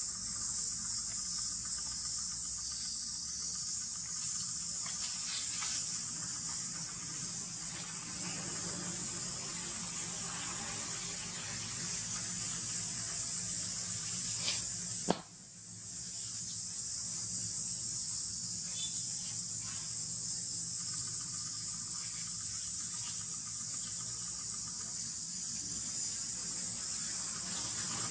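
Steady, high-pitched drone of forest insects. About halfway through there is one sharp click, and the level dips briefly.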